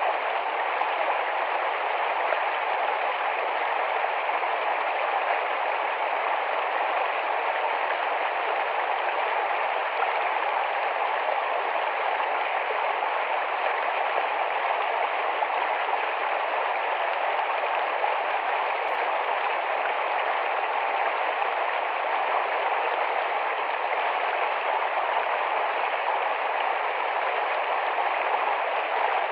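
Shallow, fast-flowing forest stream running, a steady even rush of water.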